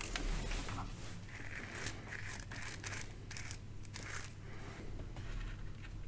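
Light metallic clicks and clinks, a few with a brief high ring, from a metal D-sub connector and soldering tools being handled while wires are soldered to the connector's pins.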